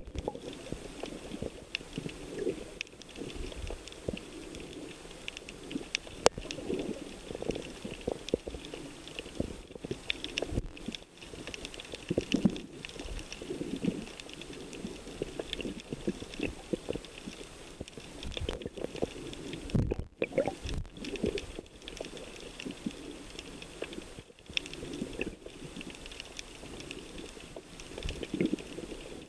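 Underwater ambience: low gurgling water noise with irregular crackling and scattered short clicks.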